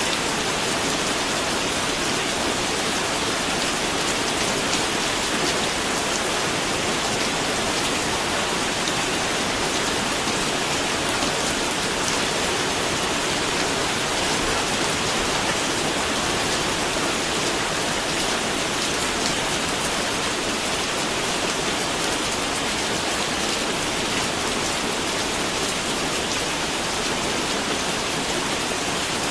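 Steady rain falling, an even hiss of many drops on a surface without let-up.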